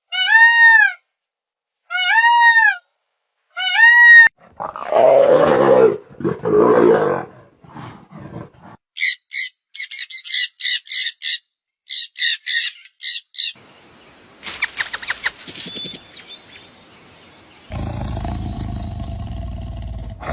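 A series of different animal calls, one after another. It begins with three short calls that rise and fall in pitch, followed by a rough growling call, then a run of fast high chirps, and ends with a long steady low call.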